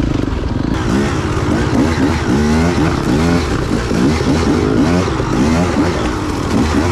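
Dirt bike engine revving up and down over and over, the throttle opened and shut about twice a second while riding rough woods single track.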